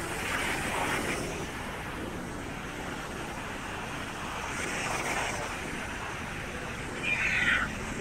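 Steady beach ambience of surf and wind noise, with one short, high, meow-like animal call near the end.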